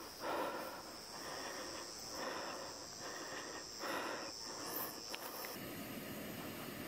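Steady high-pitched buzzing of an insect chorus, which cuts off about five and a half seconds in. Three louder rushes of rustling noise come in over it, about a second and a half to two seconds apart.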